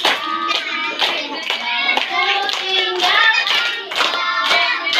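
A group of children singing together while clapping their hands in a steady rhythm, about two claps a second.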